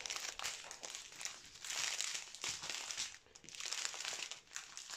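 Plastic crinkling in uneven bursts as a strip of small sealed bags of diamond-painting drills is handled and laid out, dropping away briefly twice in the second half.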